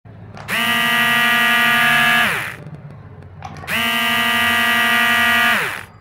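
DC gear motors of a homemade remote-control truck whirring at full speed in two bursts of about two seconds each, each ending with a falling whine as the motors wind down.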